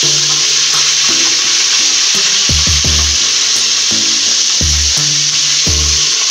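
Garlic, ginger and green chilli paste sizzling in hot oil as it is added to the pot: a loud, steady hiss of frying.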